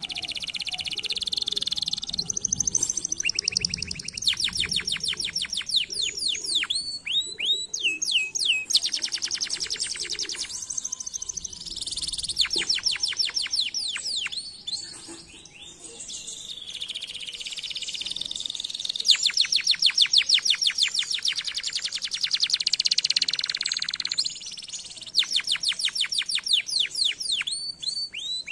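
Domestic canary singing: phrases of very fast repeated notes and trills, each note sweeping down in pitch, with short breaks between phrases.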